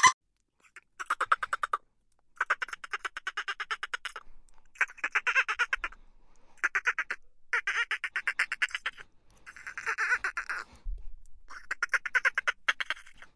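Dolphins making burst-pulse calls: about seven quacking, squawk-like bursts, each a fast train of clicks lasting up to a second or so, separated by short pauses.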